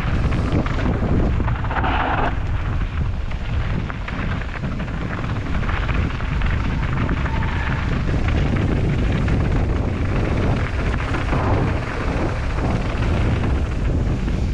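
Heavy wind buffeting the microphone over a steady low rumble of a mountain bike's tyres and frame rattling over rough trail at speed.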